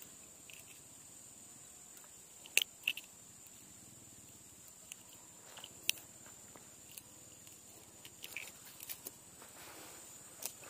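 Scattered short sharp clicks and small crackles from handling a caught fish and unhooking it with fishing pliers, over a faint steady high hiss.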